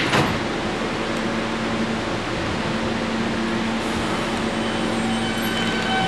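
Stopped New York City subway car humming steadily from its air-conditioning and onboard equipment, with a sharp click right at the start. Near the end, thin whining tones come in as the train starts to pull out.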